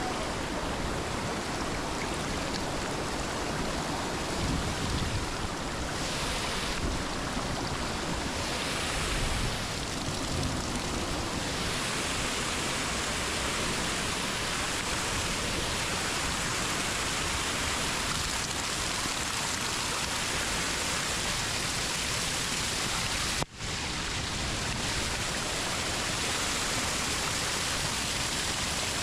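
Steady rush of creek water and waterfall, an even wash of noise with one momentary break near the end.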